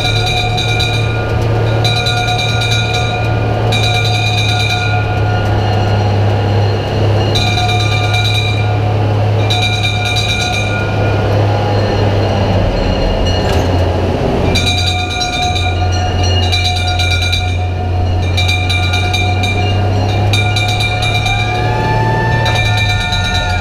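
Brass bell on a pre-war Leyland Metz turntable ladder fire engine, rung by hand in repeated bursts every second or two over the steady low drone of the appliance's engine. The bell stops for about two seconds a little over halfway through, then carries on.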